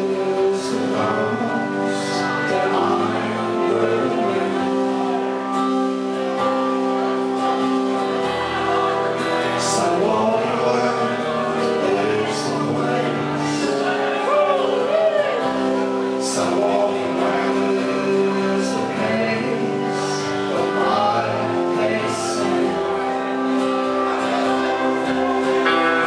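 Live indie band playing a song: strummed acoustic guitar and drum kit under singing, with short percussion hits now and then.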